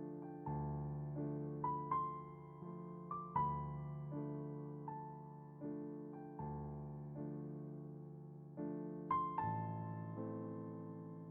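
Slow, soft relaxing piano music: single notes and chords struck about once a second, each left to ring and fade.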